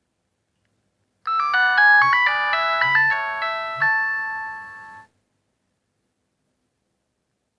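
A Nokia 1200 ringtone played on a Sony Ericsson Z610i: a short, bright melody of quick notes, several sounding at once, with a few low beats beneath. It starts about a second in, lasts about four seconds, fades over its last notes and stops abruptly.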